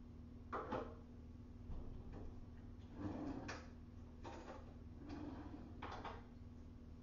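Faint kitchen handling sounds: about six short knocks and clatters of cabinet doors, drawers and dishes as food is being prepared, over a steady low hum.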